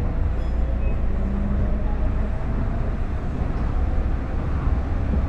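Tokyo Monorail car running at speed through a tunnel, heard from inside the cabin: a steady low rumble with a faint whine from the drive.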